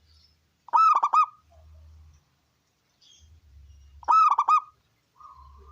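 Zebra dove (perkutut) cooing: two loud phrases of a few quick, stuttering notes each, about three seconds apart, over a faint low hum.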